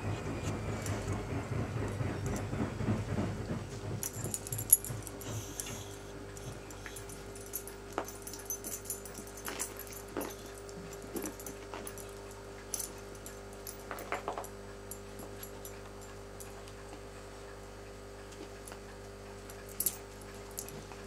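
Cavalier King Charles Spaniels at play: a low, pulsing play-growl for the first few seconds, then quieter with a few short puppy whimpers and light clicks and knocks.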